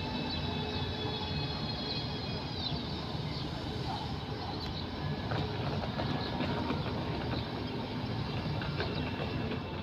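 Renfe Civia electric commuter train running slowly along the platform with a steady rumble. High thin squeals from its wheels and brakes sound in the first few seconds, one dropping in pitch, and then fade out.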